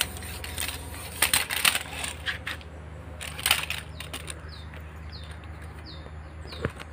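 Clicks, knocks and rustles from a camera and tripod being handled and set up, several sharp clatters in the first three and a half seconds. In the second half, a run of short, high chirps repeats about every half second over a steady low hum.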